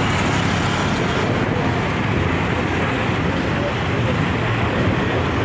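Steady city road traffic noise with a continuous low rumble.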